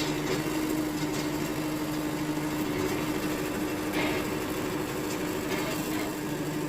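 Wood-Mizer LT70 sawmill's engine running at a steady idle, with a constant hum; a brief rattle about four seconds in.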